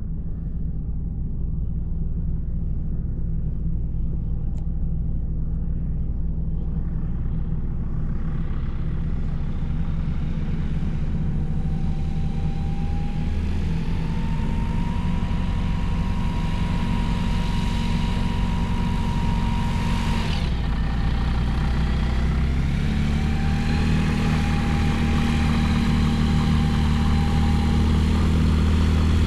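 Small propeller plane's piston engine running, slowly growing louder, with a rising tone near the middle and an abrupt shift in the sound about twenty seconds in.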